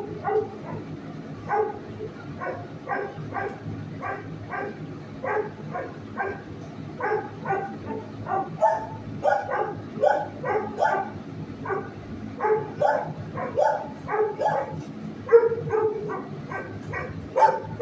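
Shelter dogs barking from their kennels: short barks coming about two a second without let-up, over a steady low hum.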